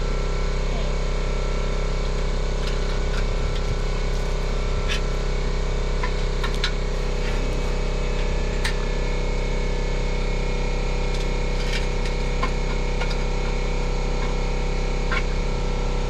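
A machine running steadily with an even drone that keeps one pitch throughout, with scattered light clicks and taps.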